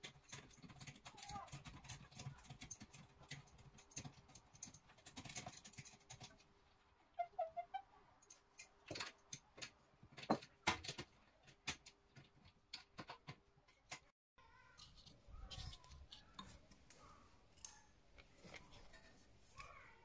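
Faint, scattered metallic clicks and knocks of hand tools working on a car's rear brake caliper, with a cluster of sharper knocks about halfway through.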